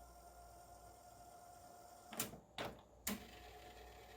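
Luxman KX-101 cassette deck's tape transport operated by hand: a faint steady mechanism whirr, with four sharp clicks of the transport buttons and mechanism, the last near the end.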